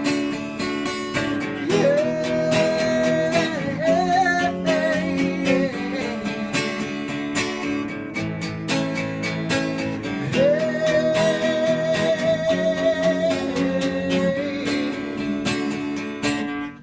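Strummed acoustic guitar playing the song's chords, with a voice holding long wordless notes twice over it.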